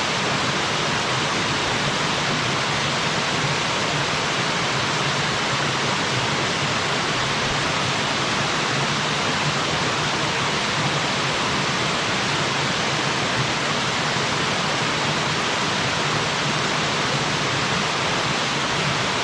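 Small mountain waterfall splashing steadily into its pool, an even, unbroken rush of water.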